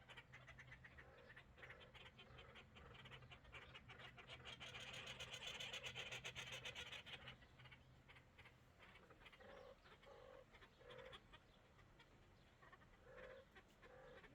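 Faint birds chattering rapidly and continuously, swelling about halfway through, then fading to a few short, low calls near the end.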